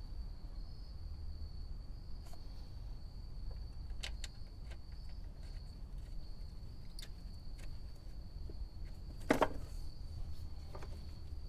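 Light clicks and taps from parts being handled in a car's engine bay, with one sharper knock about nine seconds in, over a steady low hum and a thin, steady high whine.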